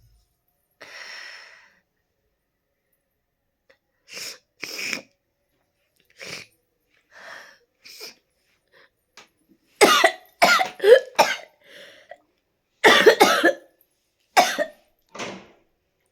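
A person with a cold and cough coughing repeatedly: a breath about a second in, several single coughs, then loud runs of quick coughs about ten seconds in and again about thirteen seconds in, with a few single coughs after.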